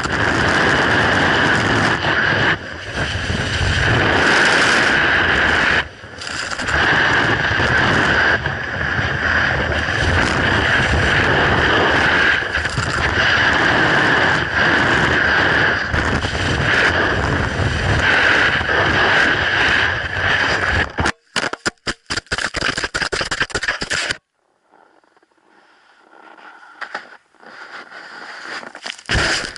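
Snowboard sliding and scraping over an icy slope, with wind rushing over the microphone, a steady loud hiss. About three quarters of the way through it breaks up into choppy bursts and then falls away to a low murmur.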